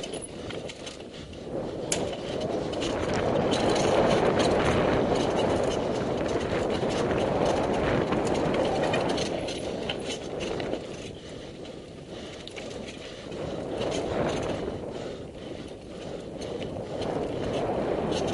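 Mountain bike descending a dirt trail at speed: the rolling noise of the tyres on the ground with sharp clicks and rattles from the bike over bumps, swelling and easing as the pace changes.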